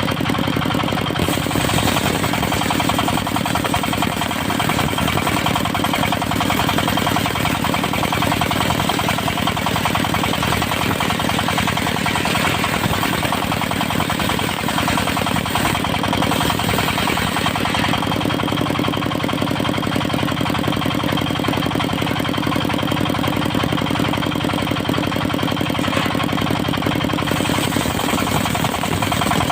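Engine driving a portable circular sawmill, running steadily with a rapid knocking beat. The high hiss brightens about a second in and drops back near the end.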